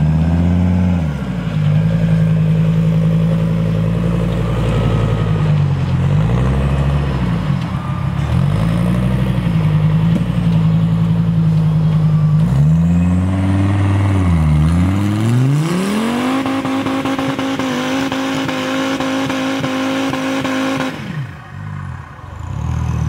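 Off-road buggy's engine working at part throttle with a few brief lifts off the throttle, then revving up and holding high revs for about five seconds. Near the end the revs drop away sharply and the engine goes briefly quieter before picking up again.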